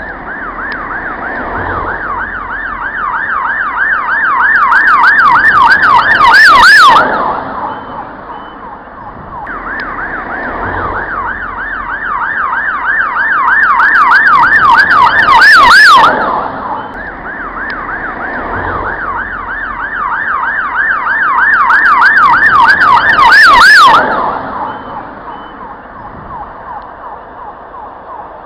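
Ambulance siren in fast yelp mode, its pitch sweeping up and down about three times a second. It swells louder over several seconds and then drops away, three passes in a row.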